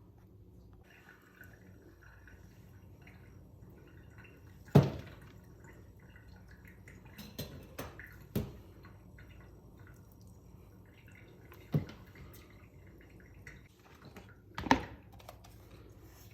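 Kitchen food-prep knocks and clinks, about five sharp taps at irregular intervals over a faint background. The loudest comes about five seconds in and another near the end.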